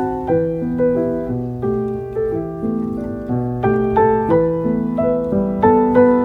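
Background piano music: a gentle melody of single notes over held chords, with notes changing about two or three times a second.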